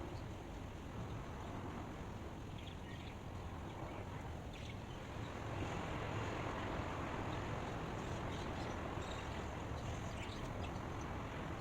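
Steady outdoor ambient noise, heaviest in the low end, with faint short high chirps here and there; it grows a little louder about halfway through.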